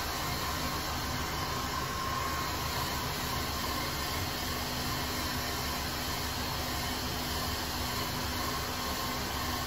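Handheld hair dryer running steadily on short hair: an even rush of blown air with a faint steady motor hum.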